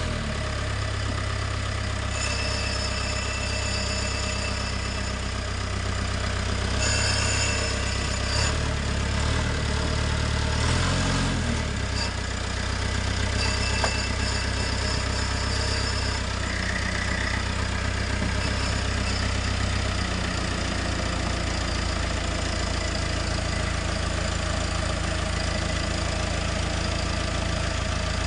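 Backhoe's diesel engine running steadily, its note dipping and shifting around the middle, with faint high-pitched whines now and then.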